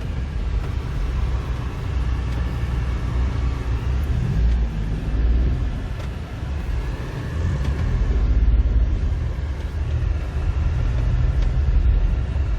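A car running, a heavy low rumble that swells and eases, with a faint higher hum over it.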